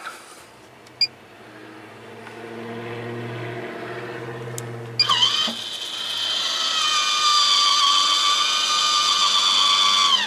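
MaxxAir roof vent fan in a van ceiling, tested on its remote: its motor starts with a low hum, a few clicks come about five seconds in, and then it runs much louder with a high, many-toned whine as the speed is raised. The whine falls away right at the end as the fan is set back down to 50%.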